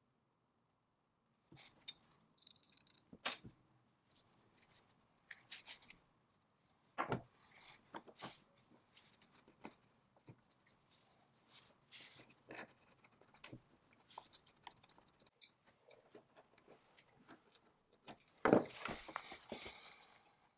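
Small handling sounds on a wooden workbench: scattered light taps, clicks and cloth rubbing as small brass and glass parts are wiped with a rag, with a sharp click about three seconds in and a knock about seven seconds in. Near the end comes a longer scratchy rustle as a sheet of sandpaper is handled.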